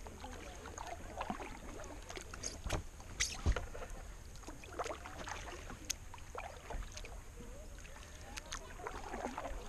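Kayak paddle strokes: the blades dip and pull through calm water with irregular splashes and drips, and a few sharp knocks, the loudest about three and a half seconds in.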